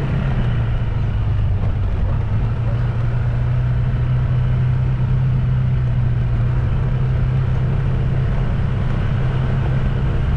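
Engine of the vehicle he is riding in running steadily at an even speed, a constant low hum over road and wind noise.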